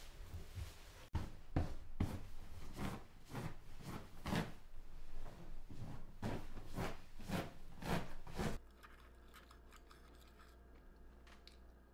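Rhythmic rubbing strokes of a floor being scrubbed by hand, about two a second. They cut off abruptly near the end, leaving a quiet room with a few faint clicks of a knife and fork on a plate.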